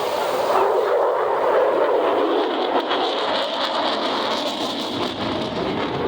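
Jet noise from an F-35 Lightning II's single afterburning turbofan engine: a steady, broad roar with no distinct tones.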